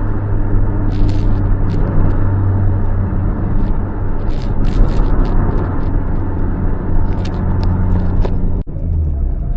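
Car exhaust through an RS-R aftermarket muffler with its inner silencer fitted, the engine running at a steady speed with a low, even note and scattered sharp clicks. The sound cuts off abruptly about a second before the end.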